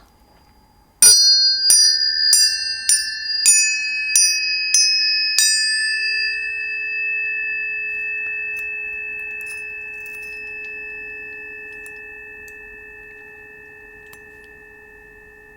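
Tuning forks struck about eight times in quick succession, a little under twice a second. Several clear pitches are left ringing together and slowly fading.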